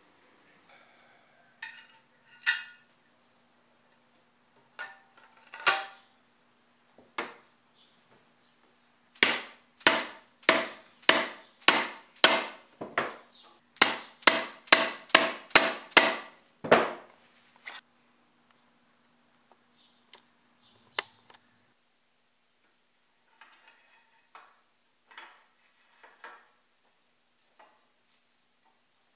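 A hammer striking metal while bicycle headset parts are driven into place. About twenty sharp blows come in two quick, even runs of two to three a second, with a short pause between them. A few lighter knocks come before the runs and faint clinks after them.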